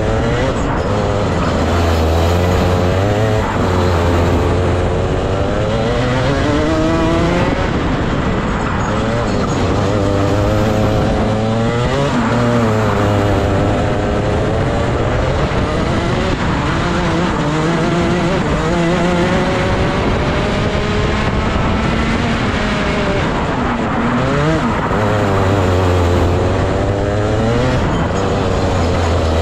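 Rotax 125 Max single-cylinder two-stroke kart engine at full throttle on a flying lap: the pitch climbs on each straight and drops sharply into each corner, several times over, as the driver lifts and gets back on the power.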